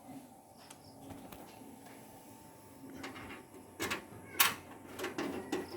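Handling noises: a scatter of sharp knocks and clicks over a faint steady hum, most of them in the second half, the loudest a little over four seconds in.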